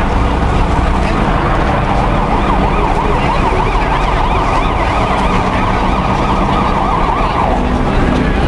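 Police van siren sounding a fast warbling yelp for several seconds, starting about a second and a half in and cutting off near the end, over a low engine hum and crowd noise.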